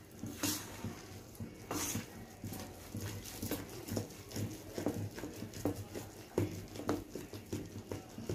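A spoon beating thick rice and urad dal batter in a metal bowl: a steady rhythm of short wet slaps, about two to three strokes a second, as the punugulu batter is whipped after the soda and salt go in.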